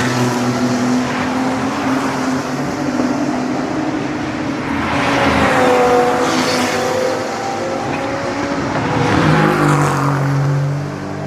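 GT and touring race cars passing at speed, engines at high revs, one after another. The loudest pass comes about halfway through, and another car swells past near the end.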